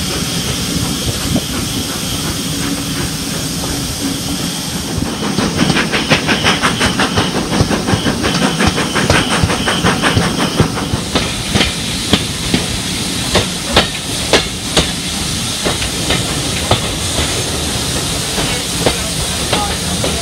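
Steam-hauled passenger train running, heard from a carriage window: a loud steady hiss and rumble, joined about five seconds in by a fast rhythmic beat, then by separate sharp clicks from the wheels on the track.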